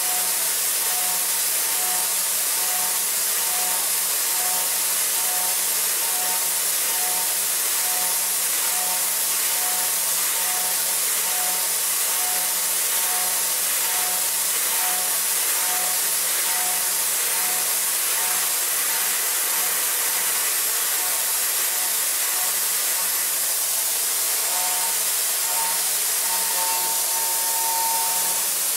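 CNC vertical machining center (DMG MORI CMX1100V) end-milling a metal block at high speed: a steady cutting hiss over a steady hum from the spindle. A fainter tone pulses about twice a second, and a second, higher pulsing tone joins near the end.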